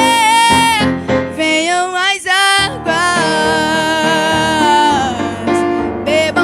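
Gospel song: a singer holds long notes with vibrato over instrumental accompaniment, with a short break about two seconds in.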